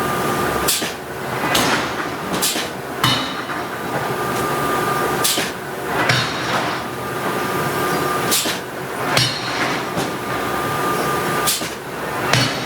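Hydraulic forging hammer striking steel: about ten heavy blows at uneven intervals, some in quick pairs, each followed by a metallic ring, over steady shop noise.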